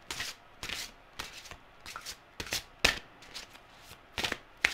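A deck of oracle cards being shuffled by hand: a run of short sliding, slapping strokes, about two a second, as the cards are worked until one comes loose.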